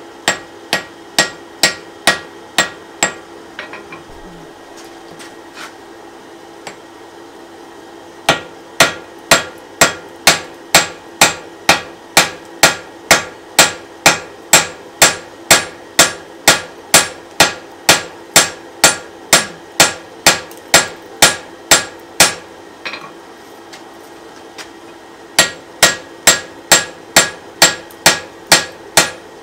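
Hand hammer striking a red-hot wrought iron hammer head on an anvil: an even run of about two blows a second, each with a bright metallic ring. The blows stop twice, for about five seconds near the start and for about three seconds two-thirds of the way through.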